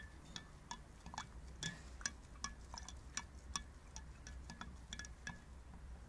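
A stirring rod clinking against the inside of a glass jar while stirring silver chloride precipitate through the green solution. The clinks come irregularly, about three a second, each with a short glassy ring.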